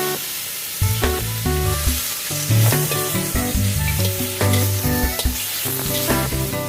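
Food sizzling in a hot pan as it is stir-fried and stirred, a steady hiss with background music under it.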